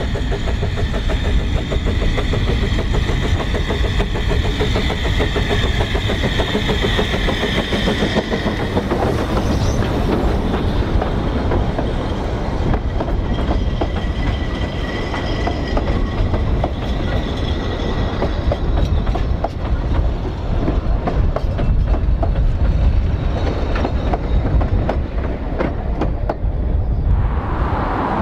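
Narrow-gauge steam train passing close by: the locomotive running up with a steady high tone for the first few seconds, then the carriages rolling past with a constant rumble and wheels clicking over the rail joints.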